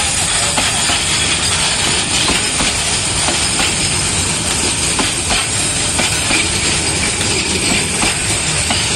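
Heavily loaded metre-gauge covered goods wagons rolling slowly past close by: a steady rumble of steel wheels on the rails, broken by irregular clacks and knocks as the wheels cross the rail joints.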